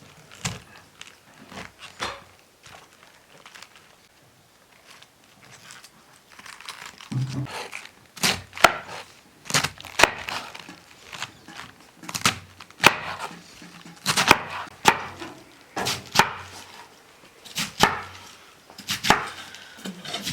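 Chopping on wood: a run of sharp, irregular knocks, about one or two a second, which starts about seven seconds in after a few scattered lighter taps.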